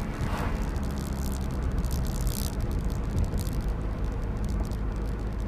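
Car driving along, heard from inside: a steady low road and engine rumble with irregular bursts of hiss over it.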